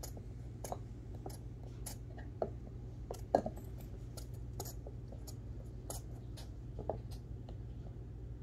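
Small dog chewing a blue chew toy: irregular clicks and crunches of teeth on the toy, a few every second, the sharpest about a third of the way in, over a low steady hum.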